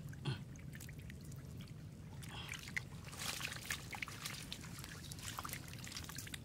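Hands splashing and sloshing in shallow muddy water while grabbing fish out of a net, with scattered small splashes and trickling water.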